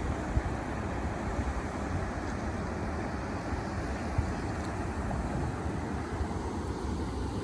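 Steady rumbling wind noise on the microphone mixed with water sounds around a canoe, with a couple of faint knocks.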